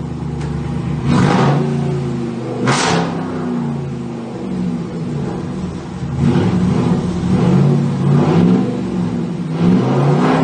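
The 2012 Ram 2500's 5.7L Hemi V8 running with the muffler and resonator deleted, revved in short blips about one and three seconds in, held up higher for a couple of seconds from about six seconds, and blipped again near the end.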